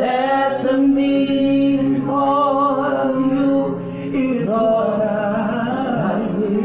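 A woman singing a gospel worship song solo into a microphone, sliding up into the first note and then holding long notes with bends and runs between them.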